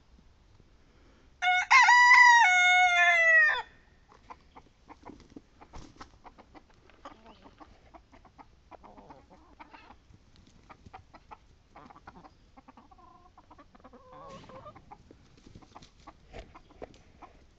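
A rooster crows once, loud and about two seconds long, a second and a half in. Afterwards there are soft hen clucks and many faint short ticks of chickens pecking and scratching at the dirt.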